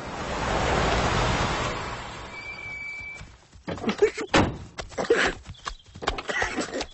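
A rushing whoosh that swells and then fades over about three seconds, with a brief steady high beep near its end. Then come short, muffled bursts of laughter being held back behind a covered mouth.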